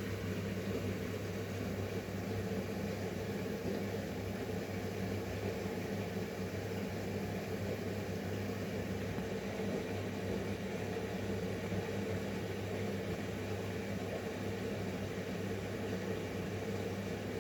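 Arçelik 10121 front-loading washing machine running through a wash, a steady hum with no change in pace.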